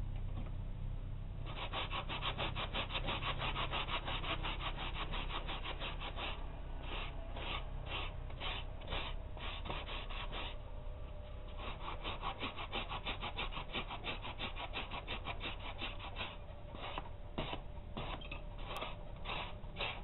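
Flat hand file rasping back and forth over the steel spine of a balisong knife blade held in a vise, smoothing the rope-pattern filework. Quick, even strokes start about a second and a half in, break off briefly near the middle, then resume with short pauses.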